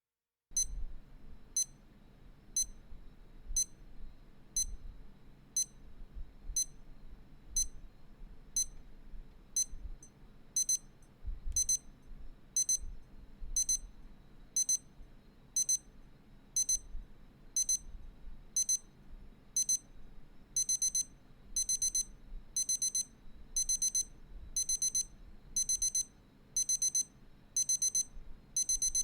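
Sharp digital alarm clock's alarm beeping, high-pitched. It starts with single beeps about once a second, changes to pairs of beeps about ten seconds in, and to quick runs of several beeps about twenty seconds in.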